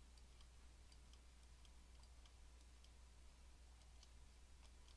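Near silence: a faint low hum of room tone with a scattering of faint computer mouse clicks.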